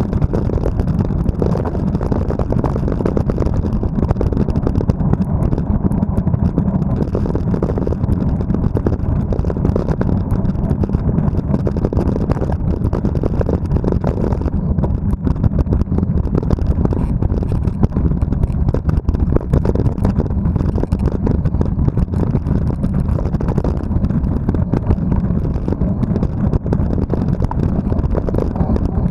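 Wind buffeting the microphone of a bike-mounted action camera at speed, mixed with mountain-bike tyres rumbling over a dirt track and the bike rattling over bumps in quick, irregular knocks.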